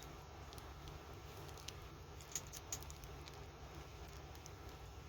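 Faint scattered clicks and light taps over a low steady hum: a pen writing a name on a diamond-painting canvas, with small handling noises.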